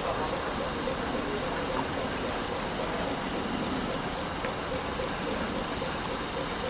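Steam tank locomotive standing at rest, giving off a steady hiss of steam.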